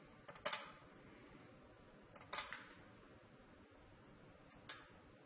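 Relays in a QuantAsylum QA450 programmable load clicking three times, about two seconds apart, as the automated test switches the load.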